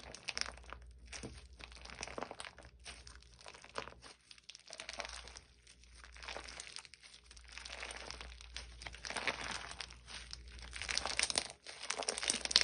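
Crunchy bead-filled slime being squeezed and pressed by hand, giving dense crackling and popping that swells and fades every second or two.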